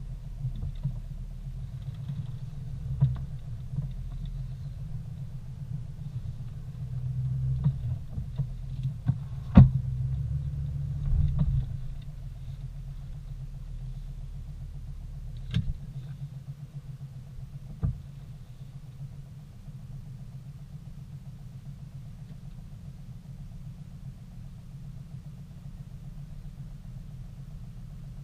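Vehicle engine running as it rolls slowly over a dirt road, with knocks and rattles from the bumps, then idling steadily once the vehicle stops about twelve seconds in. A few sharp knocks stand out, the loudest near the middle.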